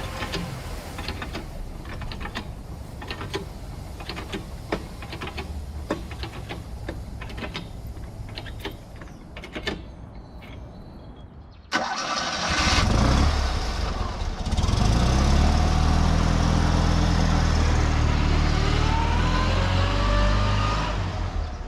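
A run of scattered clicks and knocks, then about twelve seconds in a Fiat 126p's small air-cooled two-cylinder engine cranks, catches and keeps running steadily.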